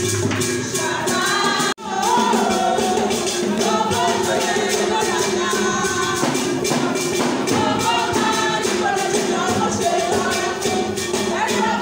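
A group of voices singing over a steady, high, shaken percussion beat. The sound drops out for an instant about two seconds in.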